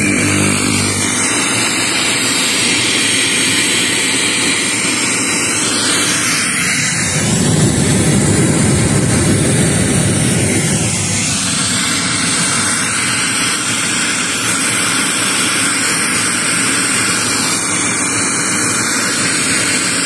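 Untuned FM radio hiss from a Sony home theatre's speakers, a steady loud rushing noise that grows louder and deeper for a few seconds in the middle. It shows the modified audio path now plays sound.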